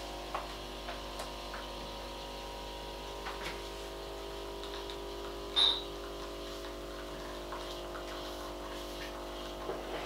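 Krups XP 3440 espresso machine's pump running with a steady hum while espresso streams into two cups. A single sharp clink comes about halfway through.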